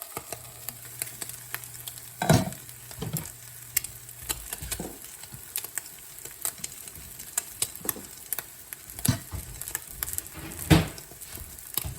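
Scrambled eggs with cheese sizzling in a frying pan, with a spatula scraping and tapping against the pan; sharper knocks about two seconds in and near the end.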